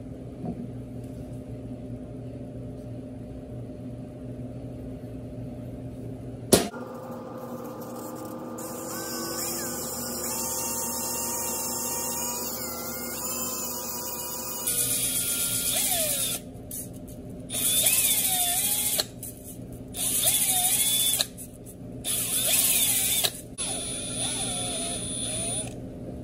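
Handheld drill spinning a steel lathe tailstock spindle against 240-grit emery cloth to polish out its scoring: a steady motor hum, with one sharp click about a quarter of the way in. From a little past halfway the drill runs in five or so louder on-off bursts.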